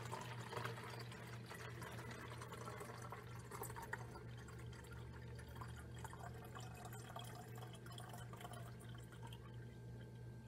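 Distilled water pouring from a plastic measuring cup into a plastic bottle, a quiet steady trickle.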